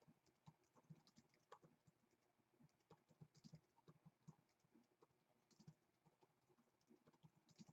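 Faint, irregular tapping of computer keyboard keys, a few light clicks a second.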